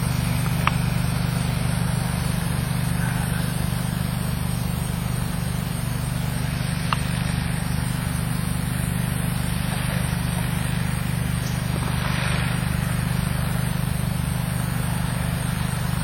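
Steady low engine drone running without change, with two faint clicks, one about a second in and another near the middle.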